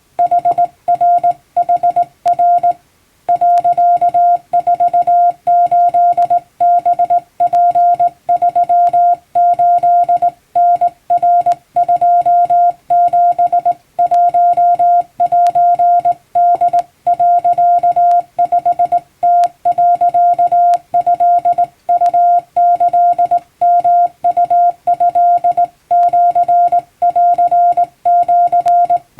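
Hand-keyed Japanese Wabun Morse code: a single steady beep tone switching on and off in short dots and longer dashes at an even sending pace, with a brief pause about three seconds in.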